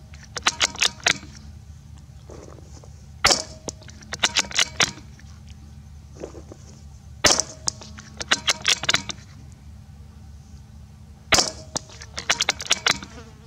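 Three rifle shots from a bolt-action Marlin XT-22 firing .22LR, about four seconds apart. Each sharp crack is followed by a quick run of smaller metallic clicks as the bolt is worked to eject and rechamber.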